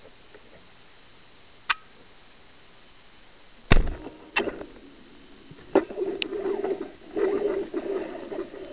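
Band-powered speargun fired underwater: a single loud sharp crack a little under four seconds in, after one faint click earlier. From about six seconds irregular clicks and a wavering buzz follow as the shooting line goes taut.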